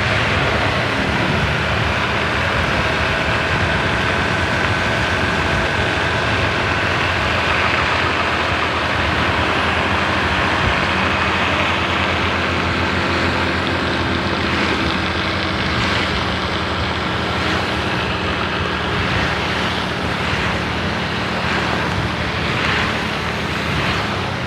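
Steady traffic noise: a heavy vehicle engine running at an even pitch under a constant hiss, with no horn sounding.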